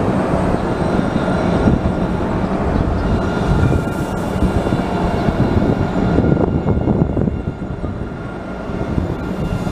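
Alstom Citadis 302 light-rail tram passing close by: a steady rumble of steel wheels on the rails with a thin high whine over it, easing a little after about seven seconds.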